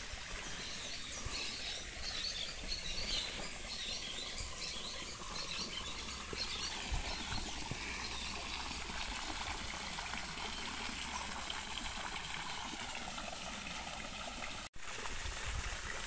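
Water spouting from an upright pipe and splashing back into a small pond, a steady trickling splash. Birds chirp over it in the first few seconds. The sound drops out for an instant near the end.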